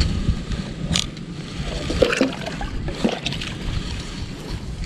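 Lake water sloshing and splashing against the bamboo poles of a raft, with a few short splashes as a hand dips into the water.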